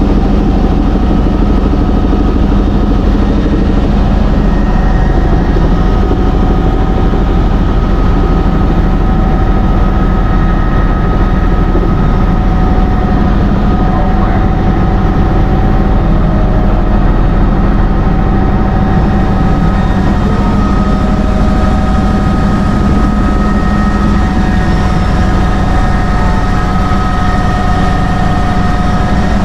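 Helicopter cabin noise in flight: the steady, loud drone of the rotor and engine with a high whine held through it, heard from inside the cabin.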